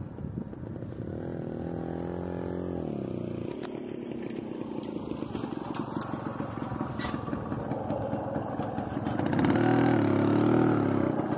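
Tractor engines running as tractors pass. One holds a steady note and drops away about three seconds in, a rumble with some clatter fills the middle, and a second, louder engine comes by near the end.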